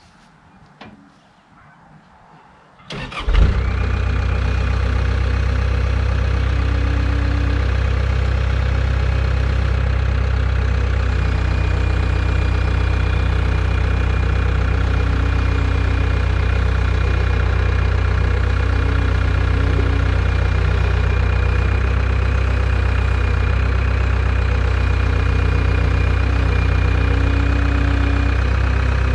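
Caterpillar skid steer loader's diesel engine cranking and starting about three seconds in, then running steadily.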